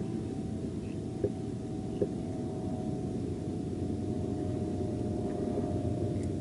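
A distant engine running steadily, a faint even hum over a low rumble, with two light clicks about a second and two seconds in.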